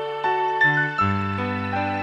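Instrumental background music: a melody of held notes that change every half second or so, over a bass note that drops lower about a second in.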